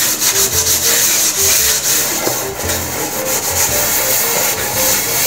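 A large aluminium cooking pot being scrubbed by hand, a continuous rasping rub of the scourer against the metal in quick repeated strokes.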